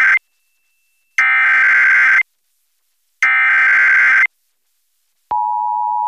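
Emergency Alert System SAME header: three one-second bursts of buzzing digital data tones with silent gaps between them. About five seconds in, the steady two-tone EAS attention signal (853 and 960 Hz together) starts.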